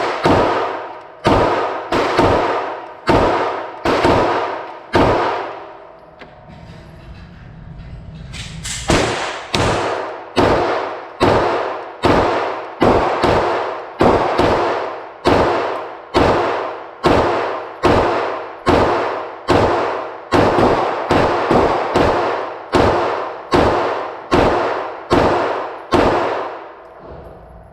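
9mm Glock-pattern pistol in a carbine conversion chassis fired semi-automatically at a steady pace of about two shots a second, each shot ringing out briefly. There is a pause of about three seconds about a quarter of the way in, then a long string of shots.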